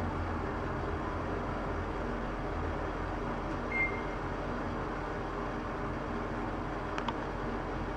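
Schindler 3000 gearless traction elevator car travelling downward, with a steady hum and rush of travel. A short high beep sounds about four seconds in as the car passes a floor, and a couple of faint clicks come near the end.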